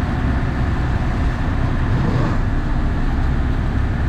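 Charter fishing boat's engine running steadily under way, a constant low rumble with water noise over it.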